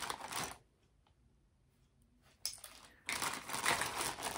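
Plastic baggie of watches being rummaged through by hand: crinkling plastic with small rattles. There is a short burst at the start, a pause, then steady rustling again from about two and a half seconds in.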